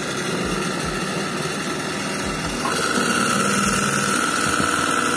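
Electric juicer, a Chinese-made Moulinex look-alike, running with nothing in it after being switched on: a steady motor hum with rattle, joined by a steady high whine about halfway in.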